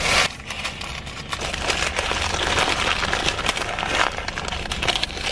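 Crinkling and rustling of food packaging handled close to the microphone, a dense run of quick crackles.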